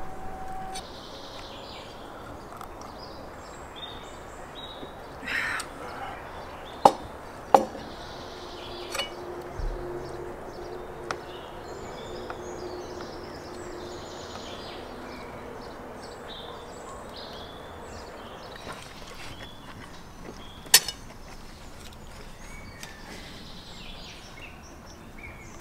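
Birds chirping over steady outdoor background noise, with a few sharp clinks of cutlery on ceramic plates: two close together about seven seconds in and one more about twenty-one seconds in.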